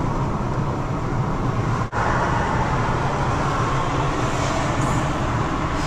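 Steady road and engine noise heard inside the cabin of a car travelling at speed on a dual carriageway. The sound cuts out for a split second about two seconds in.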